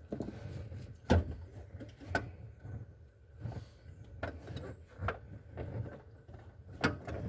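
Scattered knocks and clicks, about five over several seconds, of car interior trim pieces being handled and pulled loose, over a low rumble.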